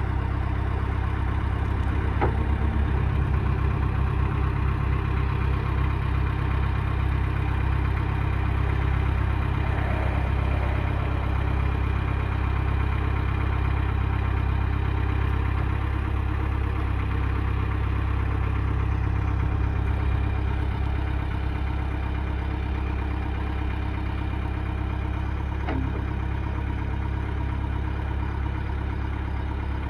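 Manitou MLT 626 telehandler's diesel engine running steadily near idle while its hydraulic boom is raised, easing off slightly about two-thirds of the way through. Faint clicks about two seconds in and again near the end.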